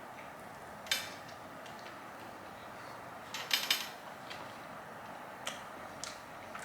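Utensil and food-container clicks and clatter during eating: a sharp click about a second in, a quick cluster of clatters around three and a half seconds, and a couple of fainter ticks near the end, over a faint steady background hum.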